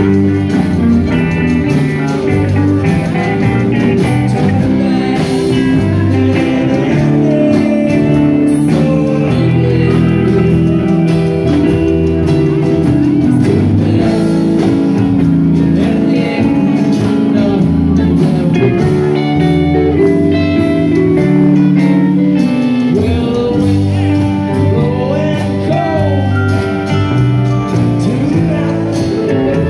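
Live band playing a blues-rock song on acoustic guitar, electric guitars, bass guitar and drum kit, with a man singing lead into a microphone.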